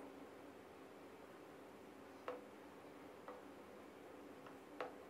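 A wooden spatula knocking lightly against the side of a stainless-steel saucepan while stirring thick salad dressing: three faint knocks, each with a brief metallic ring, against near silence.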